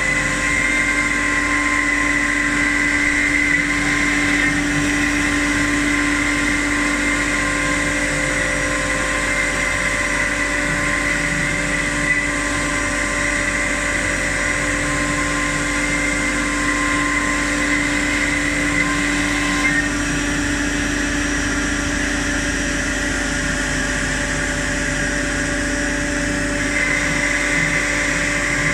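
CNC machine running steadily: a motor whine made of several steady tones over a machine hiss, with the upper whine shifting a few times.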